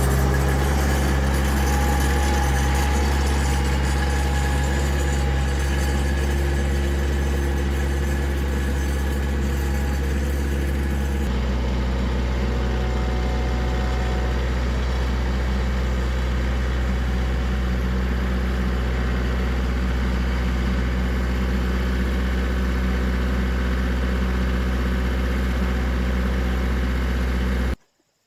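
An engine idling steadily, with a deep, even hum; its tone shifts abruptly about eleven seconds in and it cuts off suddenly near the end.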